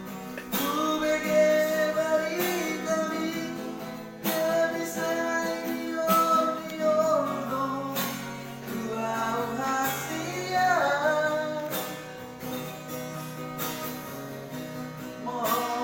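A voice singing long held notes over guitar accompaniment.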